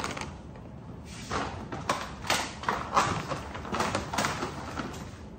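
Rustling and crinkling of a reusable shopping bag and plastic-wrapped groceries being rummaged through, in irregular bursts with a few light bumps.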